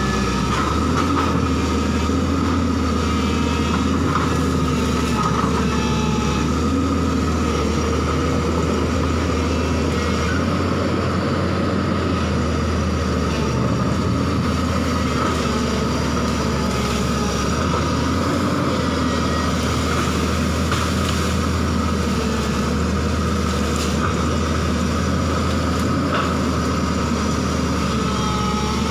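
JCB crawler excavator's diesel engine running steadily as the machine works, a low drone that rises and falls a little with the load, with a steady high whine over it.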